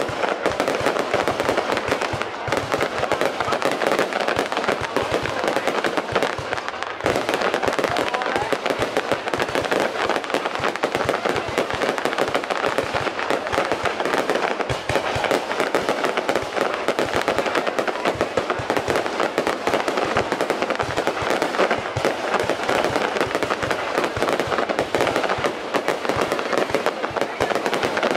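Fireworks going off in a dense, continuous barrage of cracks and bangs, with a brief lull about seven seconds in.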